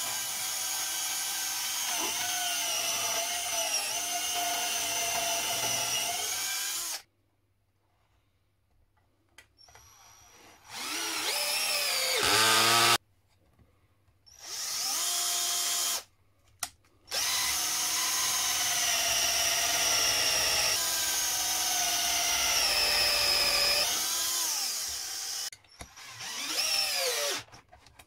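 Parkside cordless drill running in about five separate bursts into a wooden board, a whining motor with its pitch sagging under load and dropping away as the trigger is released, with short quiet gaps between runs.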